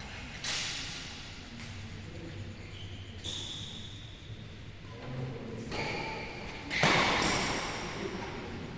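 Badminton play in a sports hall: sharp racket strikes on the shuttlecock, echoing in the hall, the loudest about seven seconds in and another about half a second in.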